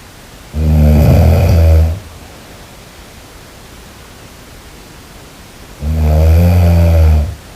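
A person snoring: two low, pitched snores, each about a second and a half long and about five seconds apart, over a steady background hiss.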